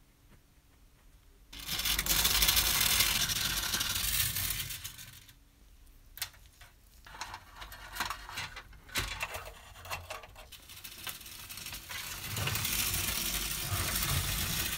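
Tin toy vehicles at work on a hard floor: a steady whirring rush for a few seconds, then irregular metallic clicks and clinks as a small hand crank winds a chain onto a toy crane's winch, then the steady whirring rush again near the end.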